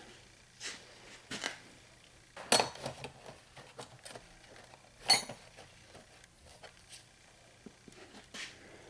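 Snap-on steel hand tools clinking against one another as they are handled, a few separate sharp clinks with the loudest about two and a half and five seconds in.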